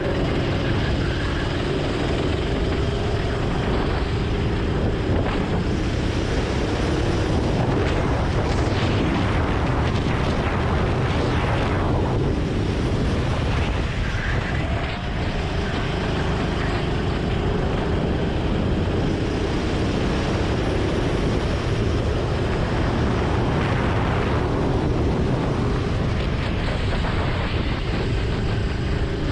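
Go-kart engine running at speed, its pitch rising and falling through the corners, under a steady rush of wind over the microphone.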